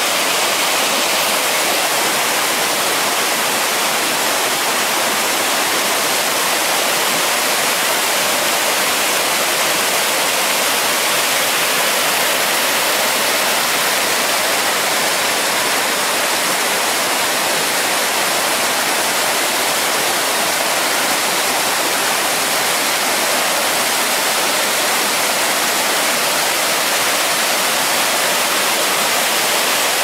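Rain-swollen mountain river rushing over rocks and small cascades: a steady, even rush of water with no let-up.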